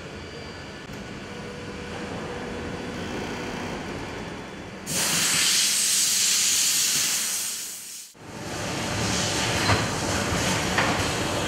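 Shoe-factory workshop machinery running steadily. About five seconds in, a loud hiss starts abruptly, lasts about three seconds and fades away. After it the machine noise comes back with a few sharp clicks.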